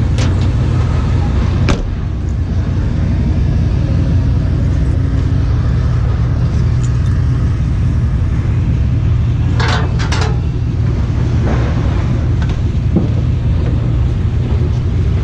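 Steady low rumble of a pickup truck driving, heard from inside the cab, with a few sharp knocks or rattles near the start and again about ten seconds in.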